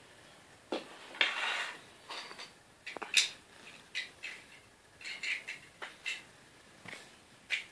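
Irregular soft rustles and clicks of a hand stroking a cat's fur close to the microphone.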